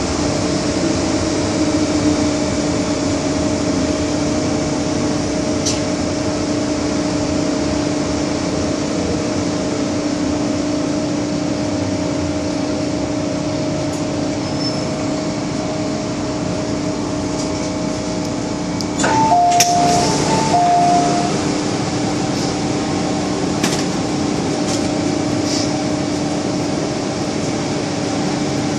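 Inside the carriage of an MTR M-Train: steady running noise with a constant hum. About two-thirds of the way through, a brief louder clatter comes with two short tones.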